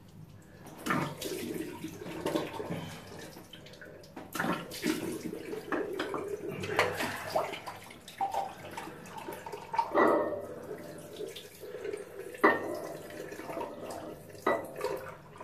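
Water running into a bathroom sink and splashing in irregular handfuls every second or two as shaving lather is rinsed off a face.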